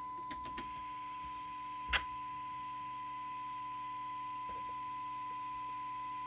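Steady test tone from the speaker of a Realistic TRC1008 CB walkie-talkie: the signal generator's modulation tone being received during receiver alignment, with the volume turned down. A single short click about two seconds in.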